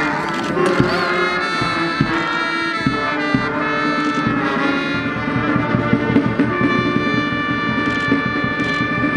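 Brass band playing: horns hold chords, with sharp drum hits in the first few seconds and a quicker beat after that.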